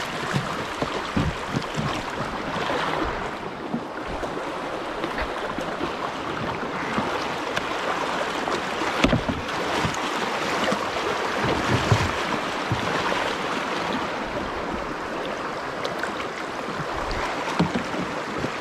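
Water rushing through a shallow, rocky river riffle around a kayak, with paddle splashes and scattered dull knocks of the paddle or hull against rocks, two of them louder near the middle.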